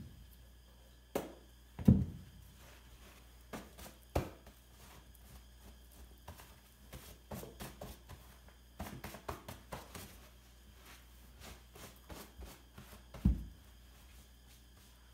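Scattered thumps, knocks and shuffling as snow-covered boots are taken off and stepped around on a doormat at a sliding patio door. The loudest thumps come about two seconds in and again near the end.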